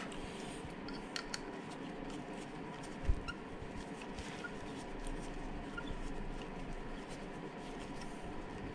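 Light clicks and taps of small metal parts being handled as the pad retaining pin is fitted into a motorcycle's front brake caliper, with one dull knock about three seconds in, over a steady background hum.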